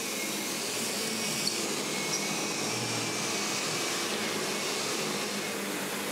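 Upright vacuum cleaner running steadily as it is pushed and pulled over carpet.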